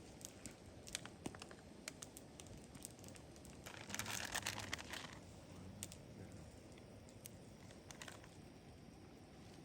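Faint scattered clicks and light taps of small objects being handled, with a brief crinkling rustle about four seconds in.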